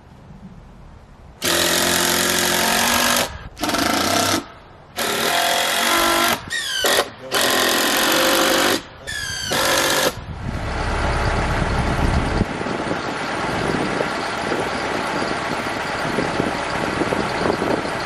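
A handheld power driver run in about six short bursts, some speeding up and slowing down, as fasteners are driven into the rough-sawn beam joint. About ten seconds in it gives way to a diesel Kubota compact tractor's engine running steadily, with a heavier rumble for the first couple of seconds, as its front-loader bucket holds a man setting a beam.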